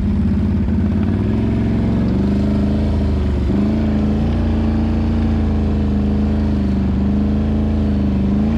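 Can-Am ATV's V-twin engine running under way on a trail. The engine note holds fairly steady, with small rises and a brief dip about three and a half seconds in.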